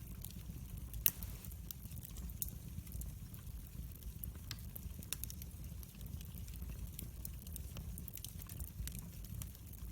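Wood fire burning in a fireplace: a steady low rumble of flames with scattered sharp crackles and pops, the loudest about a second in.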